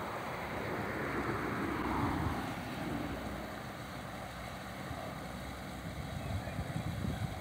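Canal cruiser's engine running at low speed as the boat approaches, with wind buffeting the microphone, the gusts stronger near the end.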